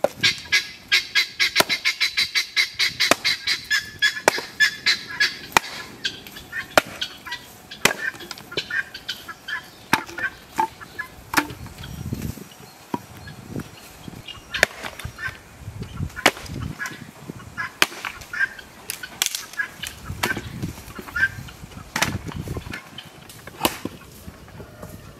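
An axe chopping and splitting firewood logs: sharp knocks every second or two, some with a dull thud of splitting wood. Over the first five seconds a domestic fowl calls in a fast run of repeated notes, about five a second, and this is the loudest sound.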